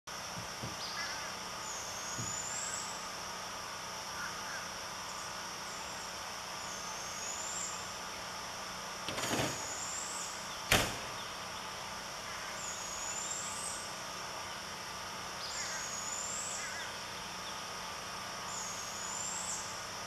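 Barred owlet squeaking: a short, high call that rises then falls, repeated about every two to three seconds over a steady background. A sharp knock a little past halfway is the loudest sound.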